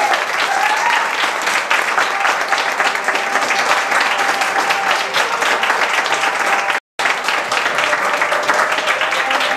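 Audience applauding, with a few voices calling out in the first second; the sound drops out completely for a split second about seven seconds in.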